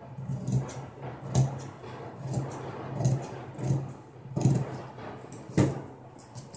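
Silk blouse fabric rustling as it is handled, with a few snips of tailoring scissors trimming the sleeve. A steady low hum runs underneath.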